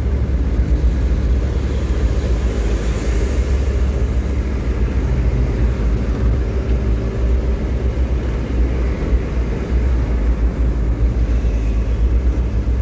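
Steady engine and road rumble heard from inside a moving truck cab, with a brief high hiss about three seconds in.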